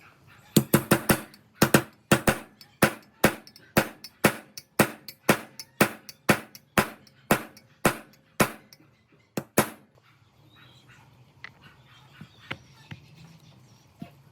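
A run of loud, sharp knocks: a quick cluster of four or five, then steady strikes about two a second for around eight seconds, stopping abruptly. After that only faint small clicks.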